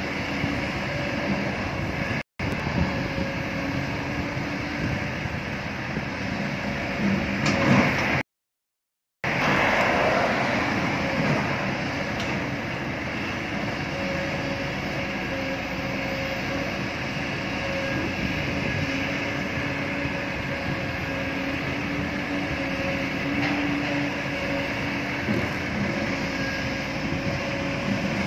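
Steady diesel engine noise from a working hydraulic excavator and passing road traffic, cutting out completely twice: once very briefly, then for about a second.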